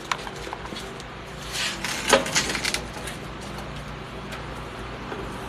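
Metal clattering and knocking as pieces are handled, a cluster of sharp knocks about two seconds in, over a steady low hum.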